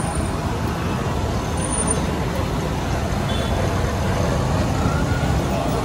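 Steady low rumbling roar with a hiss over it, from a street stall's big gas burner and a large kadai of Mysore bondas deep-frying in oil.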